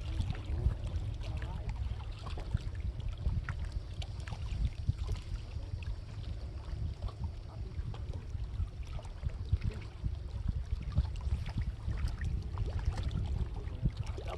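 Wind buffeting the microphone in a low, gusting rumble, with scattered faint clicks and light water noise.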